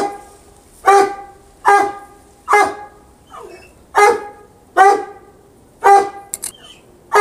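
An animal calling over and over: about seven short, loud, pitched calls, one every second or less, each starting sharply and dying away quickly.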